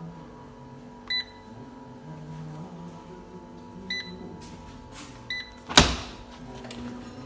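Three short electronic beeps from a Siemens dishwasher's control panel, spaced a few seconds apart, over a steady low hum. A single loud sharp clack follows shortly after the last beep.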